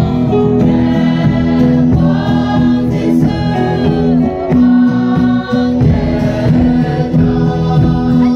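A choir of young women singing a hymn in unison, accompanied by a strummed acoustic guitar, with a man's voice among them.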